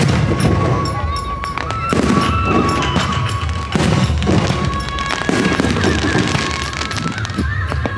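Fireworks bursting in repeated booms and crackles, every second or two, over music with long held notes played for the show.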